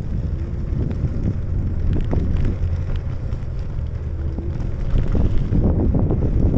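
Wind buffeting the microphone over the low rumble of bicycle tyres rolling on a paved trail, with a few light clicks or rattles about two and five seconds in.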